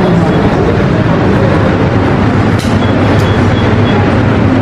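Steady road and engine noise of a moving vehicle, heard from inside it.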